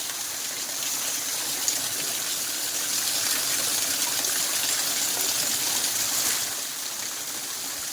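Waterfall splashing: a steady rush of falling water, a little louder through the middle.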